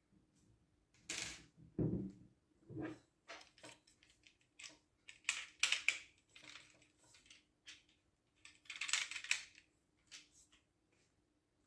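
Light metallic clicks, taps and short scrapes of a hand tool and small parts being worked on an air rifle's action, coming irregularly and busiest about halfway through and again near the end.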